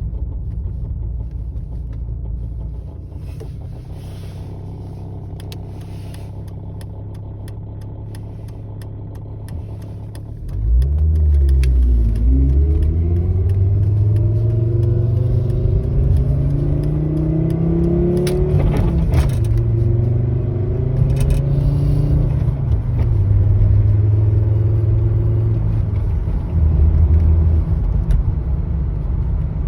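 Engine of an 850R machine running with a steady low rumble, then about ten seconds in it gets suddenly louder, its pitch climbing and falling as it revs or pulls under load and settling lower near the end. The recording is of a weird noise the owner wants to capture.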